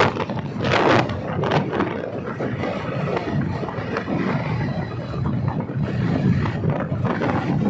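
Motorcycle riding at cruising speed: wind buffets the microphone in irregular gusts, strongest in the first second, over a steady low rumble of engine and road noise.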